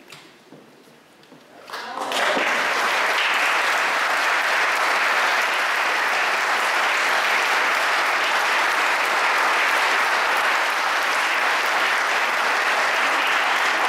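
Audience applauding: a dense, steady clapping that starts about two seconds in and keeps on at an even level.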